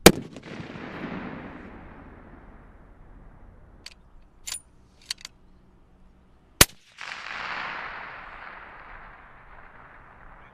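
Two sniper rifle shots about six and a half seconds apart, each a sharp crack followed by a long echo that rolls away over about two seconds. A few short clicks come in between, around four to five seconds in.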